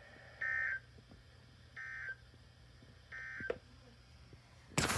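NOAA Weather Radio EAS/SAME end-of-message data burst: three short bursts of warbling digital tone, about a second and a half apart, marking the close of the weekly test message. A loud crackling burst cuts in right at the end.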